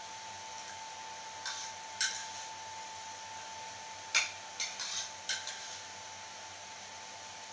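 Metal spoons clinking and scraping against plates as two people eat. Single clinks come about one and a half and two seconds in, then a quick run of clinks between about four and five and a half seconds, over a faint steady hum.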